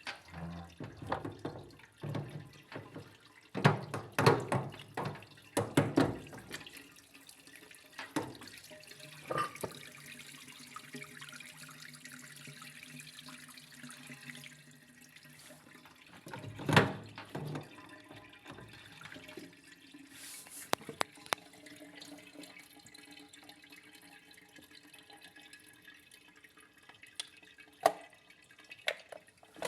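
Water splashing and dripping, with scattered knocks and clatter of parts being handled.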